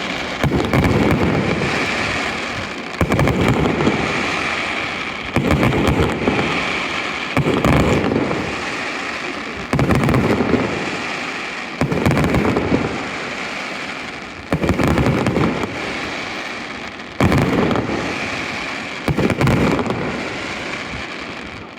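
Aerial fireworks shells bursting overhead one after another, about every two to three seconds. Each is a sudden loud boom that trails off slowly.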